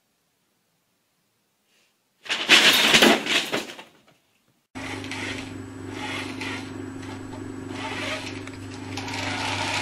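A paper bag crinkling and rustling loudly for about two seconds as a cat scrambles into it and knocks it over. Afterwards there is a steady low hum with background hiss.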